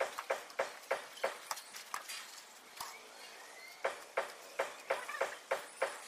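Steady knocking strikes, about three a second, that stop for about two seconds in the middle before starting again.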